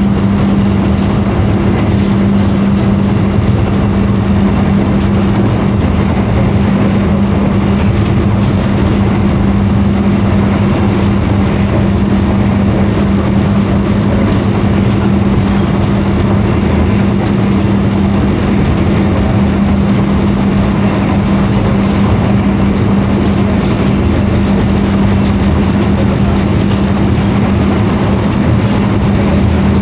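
Steady running noise inside a moving passenger train carriage: the wheels rolling on the track, with a constant low hum throughout.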